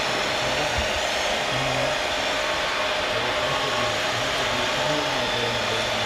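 Hydraulic pump of a radio-controlled Komatsu excavator model running with a steady whir as the machine slews round, over a murmur of background noise.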